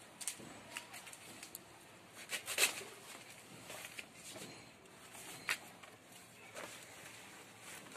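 Large banana leaves rustling and crackling as they are handled and cut with a knife: irregular short snaps and rustles, the loudest cluster about two and a half seconds in.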